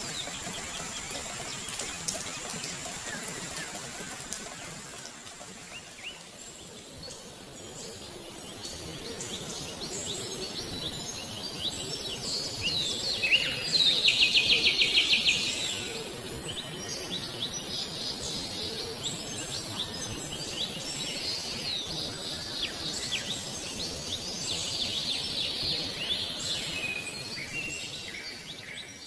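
Birds chirping and calling over a steady high insect trill, with a loud, rapid chattering call of about ten notes a second lasting about two seconds near the middle.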